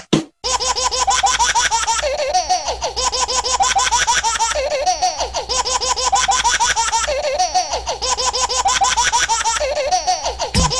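High-pitched giggling laughter, a short laugh recording looped over and over, repeating about every two and a half seconds.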